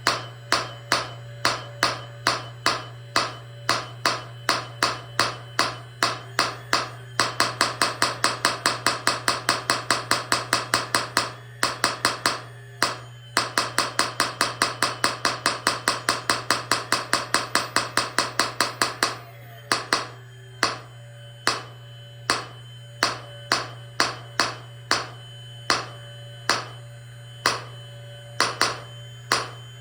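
Small hydraulic jack hammer on a Lesu scale model pounding on rock: a steady run of sharp taps about three a second, twice speeding up to a faster rattle of about six a second in the middle, over a steady low hum.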